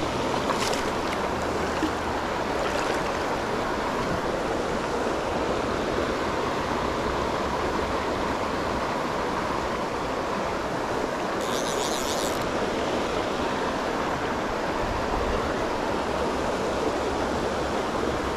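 Steady rush of a shallow, rocky stream flowing through a riffle. A brief high, wavering sound comes in about eleven seconds in.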